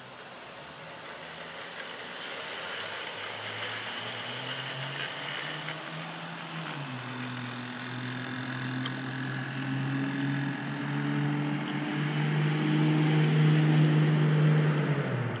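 G scale model train running on its track, a mechanical motor-and-gear hum that shifts in pitch about halfway through and grows steadily louder.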